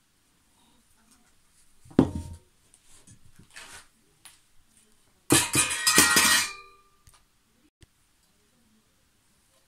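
Thin metal tubes of a flat-pack garden trolley frame knocking and clinking together as the parts are handled: one knock about two seconds in, then a louder cluster of clanks with a brief ringing after the middle.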